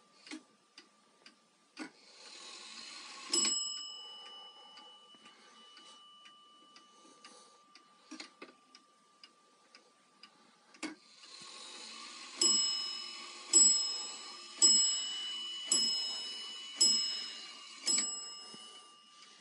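Weight-driven Dutch-style wall clock ticking steadily while its hands are turned. The striking train whirs and the bell strikes once about three seconds in. From about twelve seconds in, the bell strikes six times about a second apart as the clock strikes the hour, each blow ringing on.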